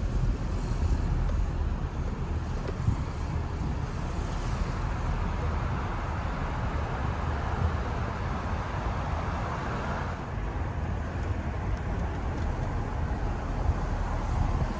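Car driving along a street: a steady low rumble of engine and tyre noise with road hiss.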